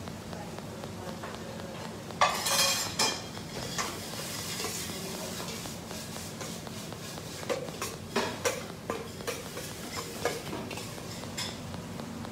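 Metal ladle and fork scraping and clinking against a plate and a stainless steel bowl as spaghetti is twirled into a nest and plated. There is a louder scrape about two seconds in and a run of light clinks later, over a steady low kitchen hum.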